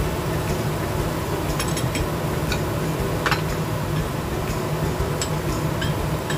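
A spoon clinking lightly and irregularly against a small ceramic bowl while cornstarch slurry is stirred, the strongest clink about halfway through. Under it runs a steady hum and hiss.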